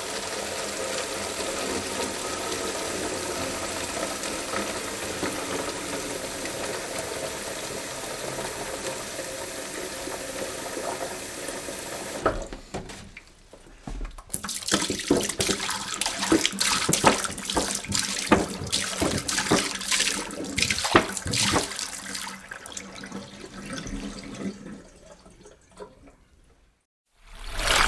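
Water running steadily, like a tap into a sink, for about twelve seconds. Then it stops and gives way to irregular splashing and sloshing, which fades out near the end.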